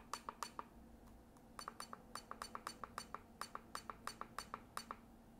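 Keypad of a RigExpert AA-1500 Zoom antenna analyzer giving a short beep-click with each button press as the band selection steps up one band at a time: four quick presses at the start, then a steady run of about four a second for some three seconds.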